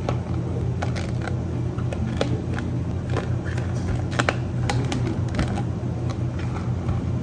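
Scattered sharp clicks and taps of cafe drink-making, like cups, lids and utensils being handled, over a steady low machine hum.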